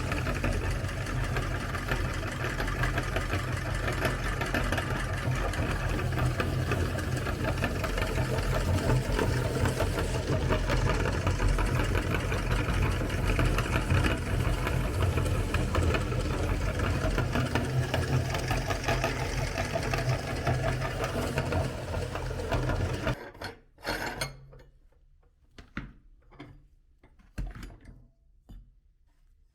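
Electric meat grinder running steadily as it grinds cookies, a motor hum with dense grainy crunching. The motor stops suddenly about 23 seconds in, followed by a few soft knocks and clicks.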